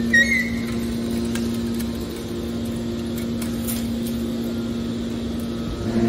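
Hydraulic scrap metal baler's power unit running with a steady hum, with a brief high squeak right at the start.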